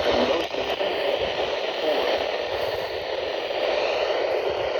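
Steady static hiss from a weather radio receiver tuned to a weak, distant NOAA Weather Radio station, the broadcast barely coming through the noise.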